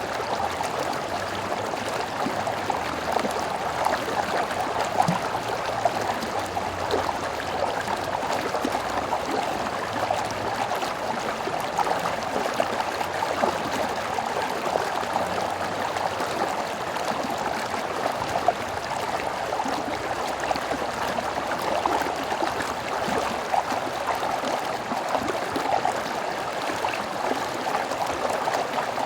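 Stream water running and gurgling over rocks, a steady rushing babble.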